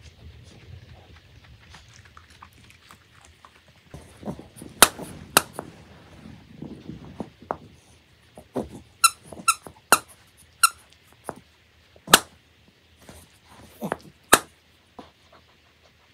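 A Yorkshire terrier chewing a yellow squeaky toy, the squeaker giving short sharp squeaks, with a quick run of about four about nine to eleven seconds in.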